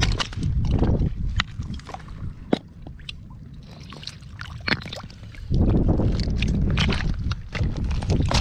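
Wind buffeting the microphone in gusts, the strongest starting about halfway through, with scattered sharp clicks of shells and stones knocking together on a shell beach.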